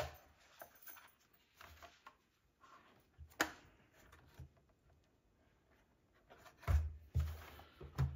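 Faint handling noises of a 1/18-scale Traxxas TRX4M RC truck being turned over in the hands: a couple of sharp clicks, then two low thumps near the end as the truck is set down on the workbench.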